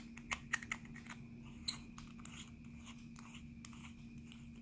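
Small clicks and taps of stainless steel parts as a Kangertech Top Tank Mini is handled and its base fitted back on, a run of clicks with the sharpest about a second and a half in, over a faint steady hum.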